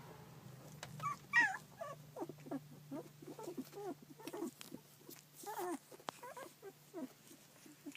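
Two-week-old rough collie puppy making short, repeated squeaks and whimpers, with one louder high squeal about one and a half seconds in.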